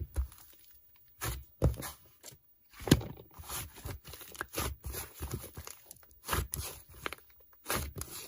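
Irregular soft taps, clicks and rustles, a dozen or so scattered short sounds, with a sharper click about three seconds in.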